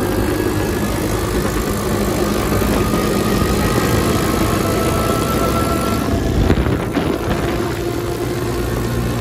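Quad bike engine running steadily while riding over a gravel track, with a broad rushing noise over it and a single knock about six and a half seconds in.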